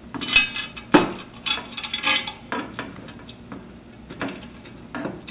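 Metal butterfly cable hanger clicking and scraping as it is bent around a coaxial cable and its bolt is fitted through, the metal knocking on a metal plate. The clicks are sharpest and loudest in the first two seconds, then lighter ticking follows.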